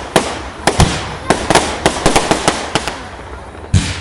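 Fireworks going off: a rapid, irregular string of sharp cracks and bangs that thins out about three seconds in, followed by one louder bang near the end.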